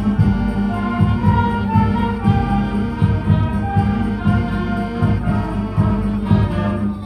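School music ensemble playing a holiday piece, with held notes over a steady pulsing beat.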